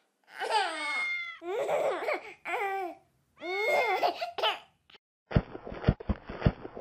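A baby vocalizing loudly in about four long, wavering cries whose pitch slides up and down. About five seconds in, a quick run of footstep sound effects starts, roughly four steps a second.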